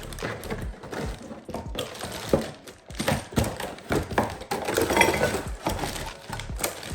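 Air compressor accessory kit being unpacked and handled: irregular clicks, knocks and rattles of plastic cases and small metal air tools.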